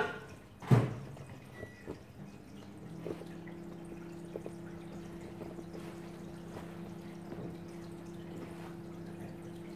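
Handling of a canvas gas-mask bag as it is opened: a brief thud under a second in and a few light clicks. About three seconds in, a faint steady hum with a low tone starts and carries on.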